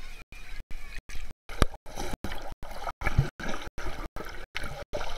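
Swimming-pool water gurgling and sloshing around a camera at and under the surface, with a sharp knock about one and a half seconds in and a dull thump about three seconds in. The sound cuts out about three times a second, giving it a choppy edge.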